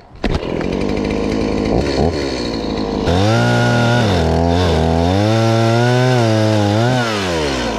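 Two-stroke chainsaw running, fairly steady at first, then from about three seconds in revving up and dipping repeatedly. The user calls its chain real dull.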